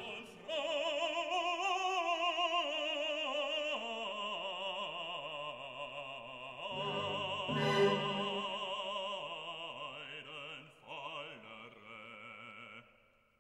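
Background classical music: an operatic voice holding long notes with wide vibrato. It fades out near the end.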